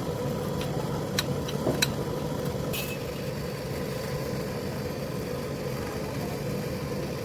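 A machine motor running with a steady hum, with a few light clicks in the first two seconds and a brief hiss about three seconds in.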